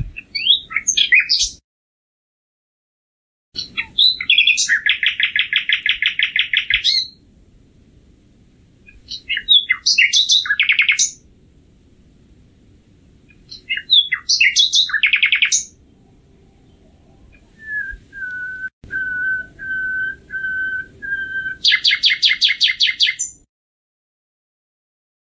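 Common nightingale singing in separate phrases a few seconds apart, several built on fast rattling trills. Near the end comes a slow run of about six pure whistled notes, then a final rapid trill.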